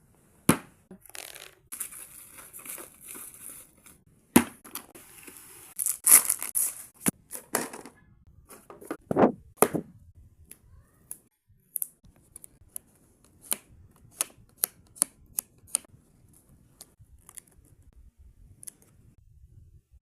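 Cardboard and packaging being torn open, with a couple of sharp knocks, followed by a run of short sharp clicks that thins out toward the end.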